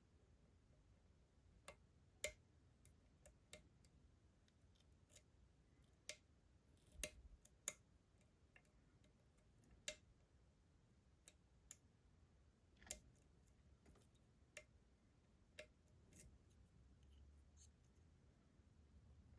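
Faint, irregular metallic clicks of a slider fork and short hook working the sliders of an ASSA Desmo slider lock during picking, a click every second or so with a few sharper ones.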